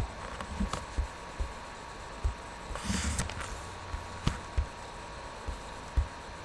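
Irregular soft low thumps and a brief rustle about three seconds in, over a steady background hiss with a faint steady tone.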